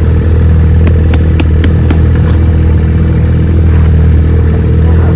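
Ski-Doo race snowmobile engine idling steadily, with a few sharp clicks about one to two seconds in.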